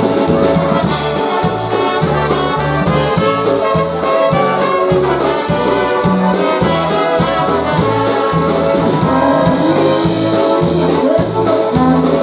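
Live polka band playing dance music over a steady, evenly pulsing bass beat.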